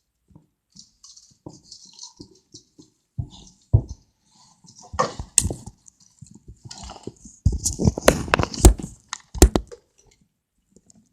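Handling noise: irregular taps, small knocks and rustling, sparse at first and thickest a couple of seconds before the end.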